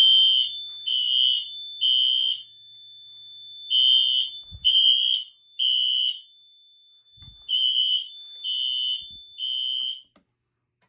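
Fire alarm system sounding in the temporal-three evacuation pattern: three high beeps, a pause, repeated three times over a steady high tone, set off by button-testing a System Sensor 2400 smoke detector. It cuts off suddenly near the end.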